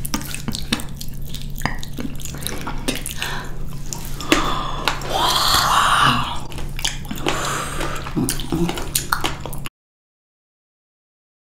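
Close-miked wet chewing and squishing of juicy blackberries, with many sticky mouth clicks and smacks over a steady low hum. The sound cuts to dead silence near the end.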